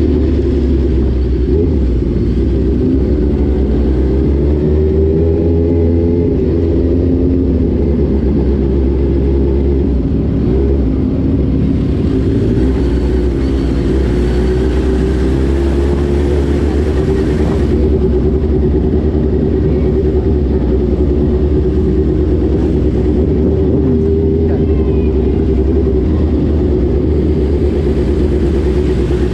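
Motorcycle engine running under way, its note rising and falling gently as the throttle changes, over a steady low rumble.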